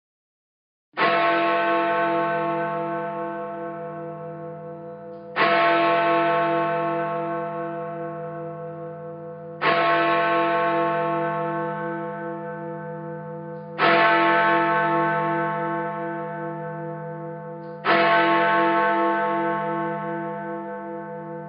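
A large church bell tolling slowly, five strokes about four seconds apart. Each stroke rings on and fades, with a deep hum that pulses as it dies away.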